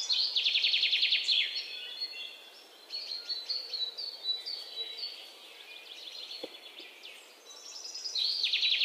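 Bird chirps and song: a fast trilling phrase near the start and again near the end, with strings of short chirps between. A single faint click comes about six and a half seconds in.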